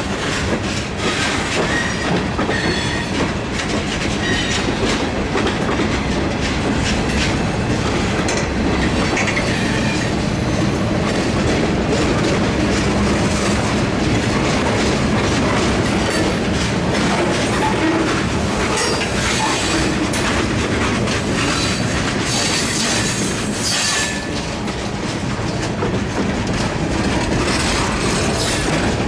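Freight train of tank cars and boxcars rolling past close by: steady wheel-on-rail rumble with clickety-clack over the rail joints, and brief high wheel squeals about two-thirds of the way through.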